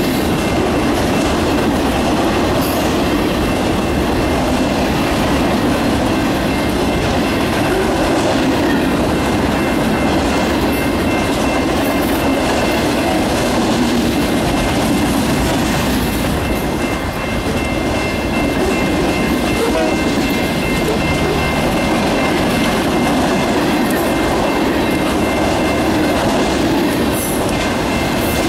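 Freight train's cars rolling past at close range: a steady, loud rumble and clatter of steel wheels on the rails, with a thin steady high tone running through it.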